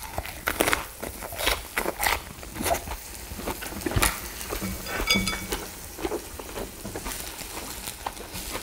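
Eating and grilling sounds at a table-top mini brazier: irregular clicks and crackles of beef rib meat on the grill and of utensils, with a short ringing clink about five seconds in.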